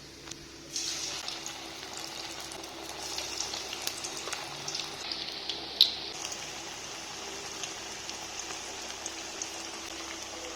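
Flattened onion vada batter patties sizzling and crackling in hot deep-frying oil. The sizzle starts about a second in and carries on steadily, with one sharp pop around the middle.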